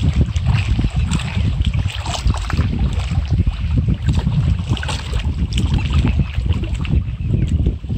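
Wind buffeting the microphone in a steady low rumble, with small waves lapping and splashing against the rocks of the shore.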